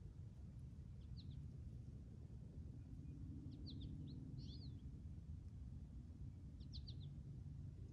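Small birds chirping in short, quick groups of high notes, three times, over a faint low steady rumble of outdoor background noise.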